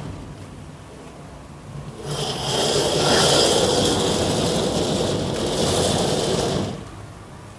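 Window curtain pulled along its rail: one long, steady slide of the curtain runners scraping on the track, starting about two seconds in and lasting about five seconds.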